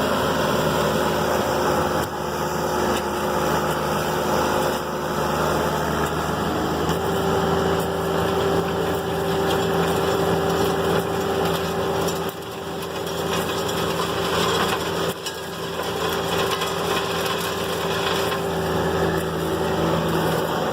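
Compact excavator's diesel engine running steadily under hydraulic load while the Gyru-Star 3-80E screening bucket's rotors turn, with soil and stones clattering through the bucket. The engine note shifts to a higher steady tone about seven seconds in.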